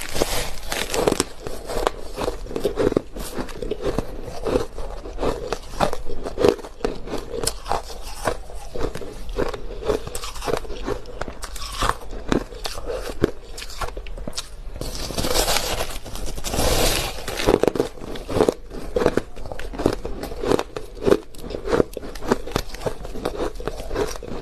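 Crushed ice being bitten and chewed close to the microphone: a continuous run of irregular crisp crunches, with denser bursts of crunching around the start and about fifteen seconds in.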